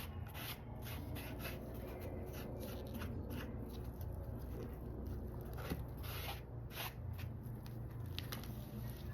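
Dye applicator rubbing and dabbing black shoe dye onto a leather handbag handle, in short irregular scratchy strokes, over a steady low hum.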